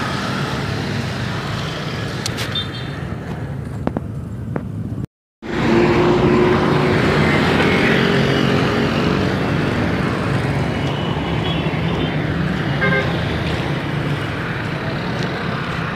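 Street traffic heard from the roadside: vehicles passing steadily, with a motor scooter's engine going by after the sound cuts out for a moment about five seconds in.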